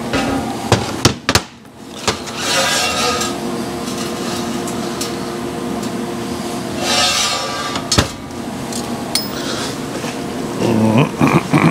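Metal clinks and knocks as stainless exhaust tubing and tools are handled and tapped on the bench. There are a few sharp ones in the first two seconds and one about eight seconds in, with two short hissing stretches between.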